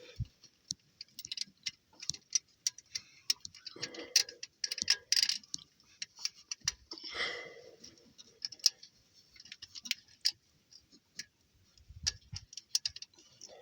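Hand ratchet wrench clicking in short, irregular runs of quick ticks as bolts are worked during an alternator removal.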